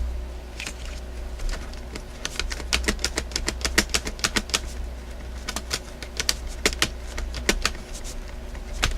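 Quick, irregular clicks and taps of small tools, screws and plastic parts while a laptop is being disassembled. The footage is sped up, and a steady low hum runs underneath.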